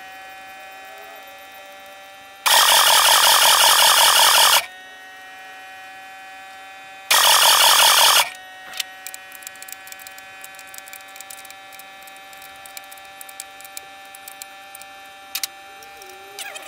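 Electric fuel pump running with a steady whine, pushing fuel through a freshly installed injection pump on a Ford 6.9L IDI diesel to prime the air-bound fuel system. Two loud, harsh bursts break in, one about two seconds long a couple of seconds in and a shorter one around seven seconds in, followed by scattered light clicks.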